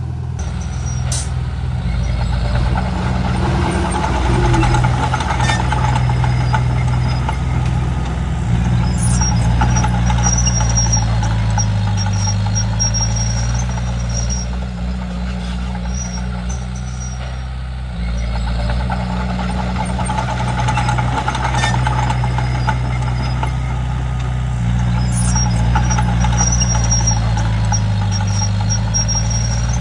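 Komatsu D31P bulldozer's diesel engine running under load, its pitch rising and falling as it works, with faint high squeaks now and then. The sound breaks off abruptly once, about two-thirds of the way through.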